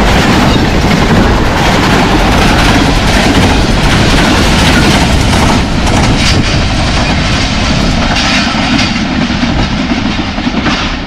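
Express passenger train passing at about 107 km/h, the coaches' wheels clattering over the rails with a loud rush of noise. The sound eases somewhat about halfway through as the train pulls away down the line.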